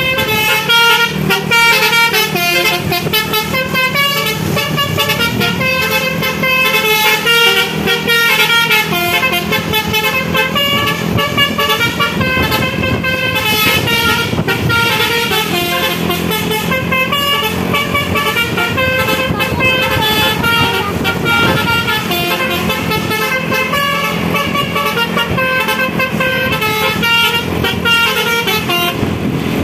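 Bus basuri (multi-trumpet melodic air horn) playing a nonstop tune of quick, short notes that step up and down in pitch several times a second.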